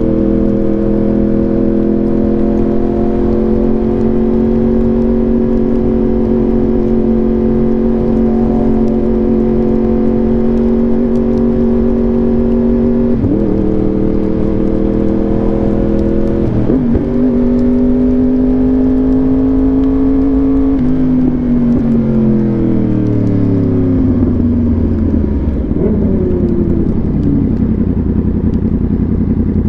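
Yamaha R1 inline-four through an SC Project exhaust, heard from the rider's position, holding steady revs with two brief gear changes a few seconds apart midway through. Near the end the revs fall off smoothly over about five seconds as the bike slows.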